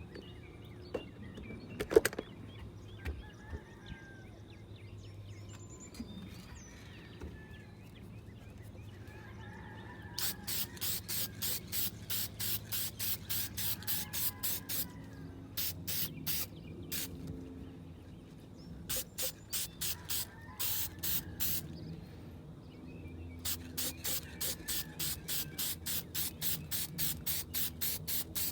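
Aerosol can of clear lacquer spraying in rapid short bursts, about three a second, in several runs with pauses between them. A sharp knock about two seconds in, before the spraying starts.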